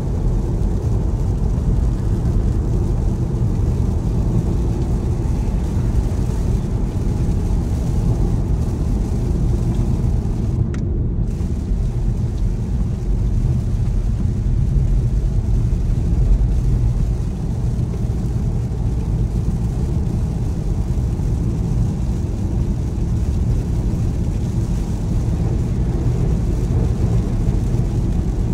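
Steady low rumble of tyre and engine noise heard inside a car's cabin at motorway speed.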